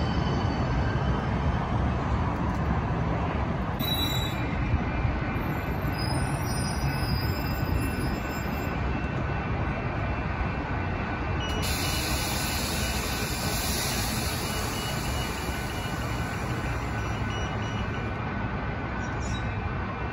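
Steady rumble of a San Diego light-rail trolley on the tracks, with thin high whines gliding in pitch at the start and faint wheel squeal.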